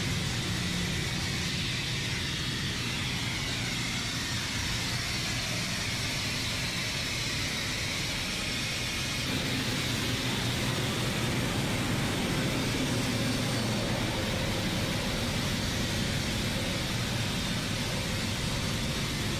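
Continuous machinery noise in a tanker ship's engine room: a steady low hum under a dense, even hiss. The balance of the noise shifts slightly about nine seconds in.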